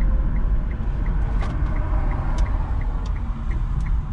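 Road and engine noise inside a moving car's cabin, a steady low rumble, with the turn signal ticking evenly about three times a second. A few faint knocks from the road can be heard along the way.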